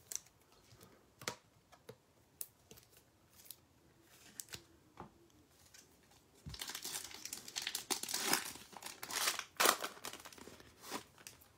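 Foil wrapper of a Panini Prizm basketball retail pack crinkling and tearing as it is ripped open by hand. A few light taps and ticks come first, then dense crinkling from about halfway through.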